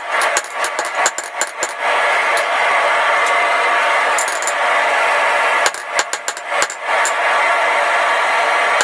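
Forging steel: runs of quick, evenly spaced hammer strikes on metal, broken by a steady rushing noise that comes in about two seconds in and again near the end.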